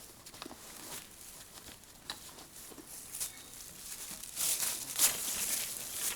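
Irregular rustling and crackling, with a denser stretch about four and a half to five seconds in.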